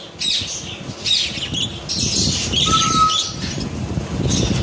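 Several budgerigars chirping and chattering in quick, repeated bursts, with one short steady whistle near the middle, over a constant low rumble.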